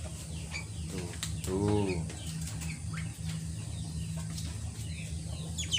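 Caged birds chirping in short, repeated high calls, with light fluttering and small clicks, over a steady low hum.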